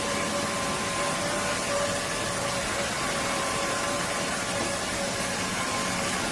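Roborock F25 LT wet-and-dry vacuum-mop running steadily in auto mode: an even rushing of air under a steady motor whine.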